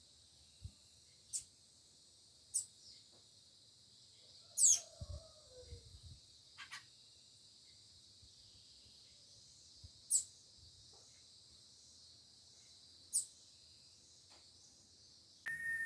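Birds chirping in the open: short, high, quickly falling calls every second or few, the loudest a few seconds in. Under them runs a steady high hiss.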